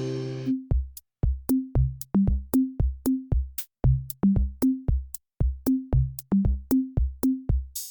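Background music: a held chord fades out, then a sparse electronic beat of kick drum, hi-hat clicks and short bass notes plays at an even rhythm.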